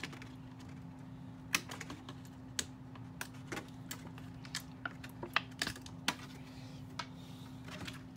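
Small plastic clicks and taps, irregular and scattered, as small plastic doll accessories are handled and freed from their packaging.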